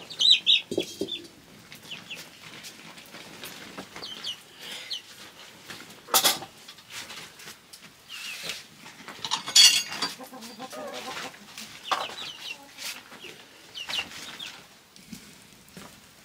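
Domestic chickens clucking on and off, with short high calls, broken by a couple of sharp clanks about six and ten seconds in.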